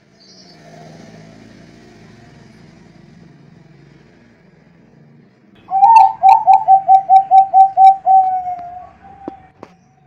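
Zebra dove (Bangkok-strain perkutut) cooing: about halfway through, a loud, quick run of about a dozen short coos on one pitch that ends in a drawn-out note. Two short clicks follow.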